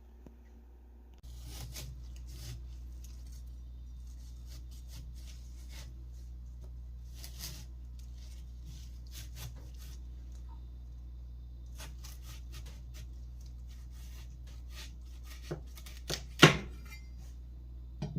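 Kitchen food-prep sounds: scattered light clicks and taps of utensils and packaging being handled over a steady low hum, with one sharp knock about sixteen seconds in.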